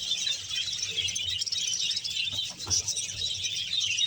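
A large flock of budgerigars chattering and chirping together in a steady, continuous din, with a few faint knocks in the middle.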